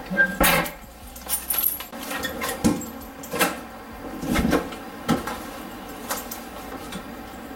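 A string of clicks and knocks from handling in an entryway: a wooden cabinet door pushed shut at the start, a brief jingle that may be keys about one and a half seconds in, then the front door's handle and lock being worked near the end.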